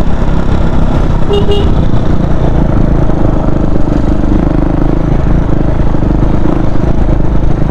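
KTM Duke 390's high-compression single-cylinder engine running with its exhaust note and an excessive tick-tick-tick ticking, which the owner suspects comes from the cam chain tensioner. A short horn toot sounds about a second in.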